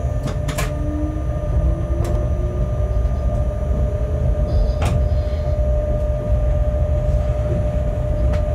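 Shunting locomotive running along the track, heard from inside its cab: a steady low rumble with a constant whine over it. Sharp clicks sound twice just after the start, then once each about two, five and eight seconds in.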